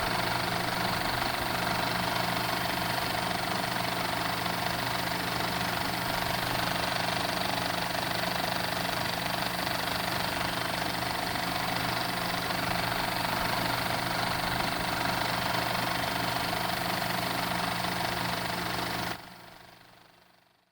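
Cine film projector running, a steady mechanical whir with a low hum; it drops off abruptly near the end and fades out.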